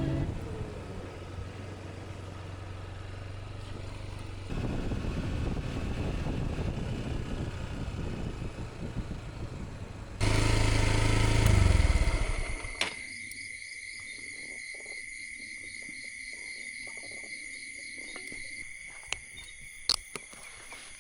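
A motorbike riding along, then briefly louder before its engine winds down and dies away about thirteen seconds in. After that, insects chirr steadily at a high pitch, with a few sharp clicks near the end.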